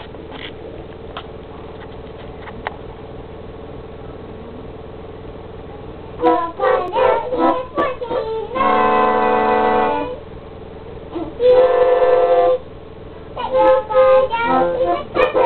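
Organ played by a small child: a steady faint hum for about six seconds, then a few short notes, two held chords of a second or more each, and more short notes near the end.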